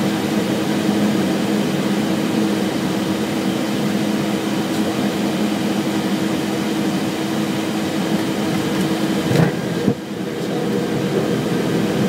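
Cockpit noise of a Cessna Citation Excel during landing: the steady hum of its twin Pratt & Whitney Canada PW545 turbofans and the rush of air, with two brief thumps a little over nine seconds in.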